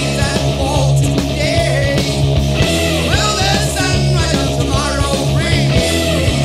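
Loud rock music with a singing voice over a steady, heavy bass.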